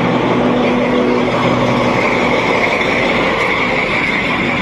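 FS D.345 diesel locomotive running steadily at close range beside its engine-room louvres, a loud engine hum, with a higher whine coming in about halfway through.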